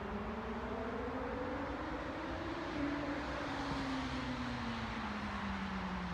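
A passing vehicle's engine tone rising slowly to a peak about halfway through, then falling away, over a steady background rumble of traffic.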